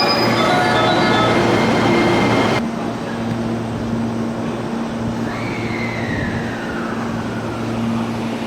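JR West electric train at a station platform: a rumble with several steady whining tones, which stops abruptly about two and a half seconds in. A steadier rumble follows, with a single whine that falls in pitch over about two seconds.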